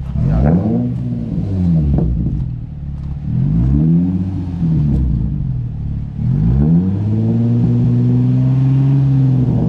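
Nissan 350Z's V6 being revved, with several quick blips of the throttle, then held at higher revs for about three seconds near the end before dropping back.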